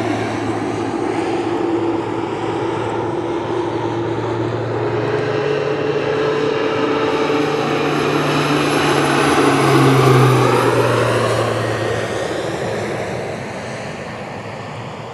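Crop-duster airplane flying past low with its propeller engine running, growing louder to a peak about ten seconds in, then fading as it moves away.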